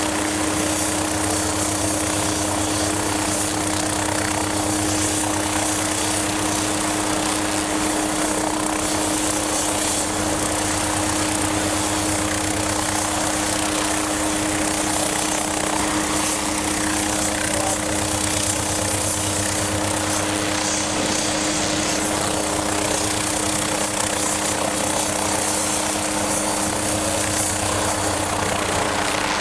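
MQ-8B Fire Scout unmanned helicopter running on deck before lift-off, its turboshaft engine and rotor turning at a steady speed. A constant hum sits under a broad rushing hiss, unchanging throughout.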